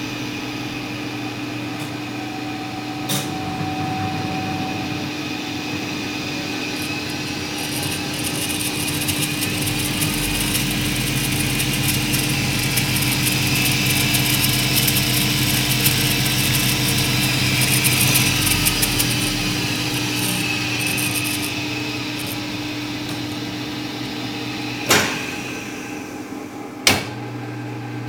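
Hardinge HLV-BK toolroom lathe running up, spinning with a steady whir that swells for several seconds and then winds down, over the constant hum of a phase converter. Two sharp clunks near the end.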